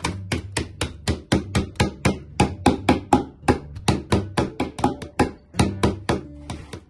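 A wooden rolling pin pounding Oreo biscuit wafers in a plastic zip-lock bag on a wooden table, crushing them: a rapid, uneven run of sharp knocks, about four a second, with crunching of the biscuits.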